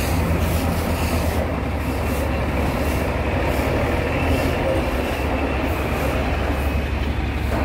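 Heavy vehicle engine idling with a steady low rumble, over constant outdoor street noise.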